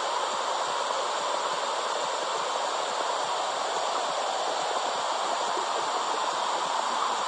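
Womb-sound track for soothing babies: a steady, even whooshing noise that neither rises nor falls.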